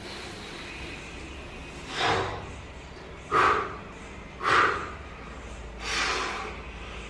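A lifter breathes heavily between reps of a 102.5 kg barbell back squat: four forceful breaths, each about half a second long and spaced a little over a second apart, the second and third the loudest.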